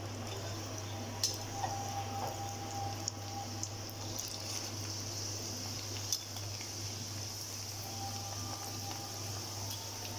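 Chana dal frying in hot oil in a karahi, bubbling and sizzling hard just after going in as its moisture cooks off, the sizzle growing stronger from about four seconds in. A few light clicks of the metal spider strainer and ladle against the pan.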